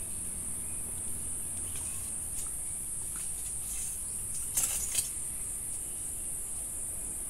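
Insects shrilling in a steady, high-pitched chorus. A brief crackling rustle, the loudest moment, comes a little past halfway.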